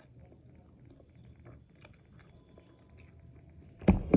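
Close-up mouth sounds of a person eating: soft, quick chewing, then two loud, sharp bites or smacks near the end.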